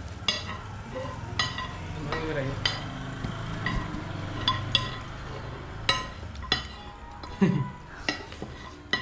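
Metal utensils clinking against metal, sharp ringing strikes about once a second at an uneven pace, over a steady low background with faint voices.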